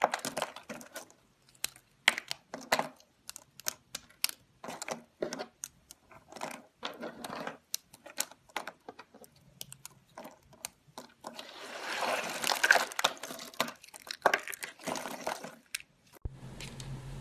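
Dry soap chips crunching and crackling as fingers crumble and squeeze them, in short crisp bursts, with a denser run of crunching about twelve seconds in. Near the end the crunching stops and a low steady hum takes over.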